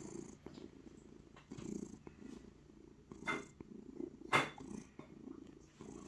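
Domestic cat purring steadily, with two sharp clicks about three and four and a half seconds in.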